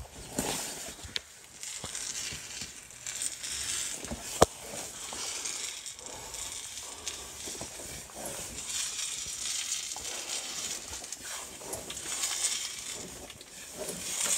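Crackling, rustling handling noise with light scrapes, as a hand-held phone is moved about under a car. There is one sharp knock about four and a half seconds in.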